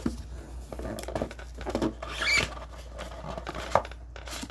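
Gloved hands working the lid off a small cardboard trading-card box: cardboard sliding and scraping against cardboard, with light taps and a brief squeaky scrape a little over two seconds in.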